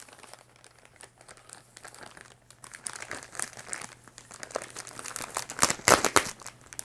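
Packaging crinkling and rustling as a parcel is opened, with a louder run of crinkling a little before the end.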